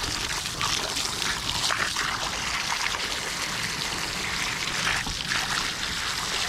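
Water pouring and splashing steadily, rinsing fish guts and blood off a table.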